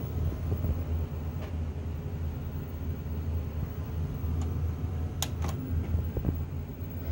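Sharp VC-H993US VCR running with a steady low mechanical hum, with two sharp clicks a little over five seconds in.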